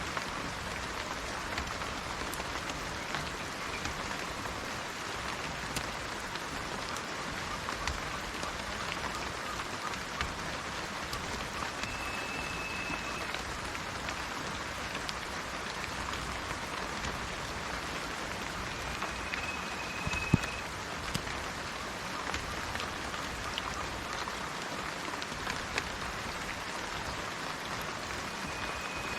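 Steady rain falling in a forest, with small drops ticking close by and one sharp drip about twenty seconds in. A short, high, even-pitched bird call sounds three times.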